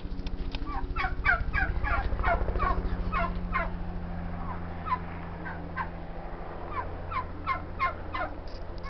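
Helicopter flying low, a steady low thrum of rotor beats that is loudest in the first few seconds and then fades. Over it, a long run of short falling bird calls, about three a second, from the yard's fowl.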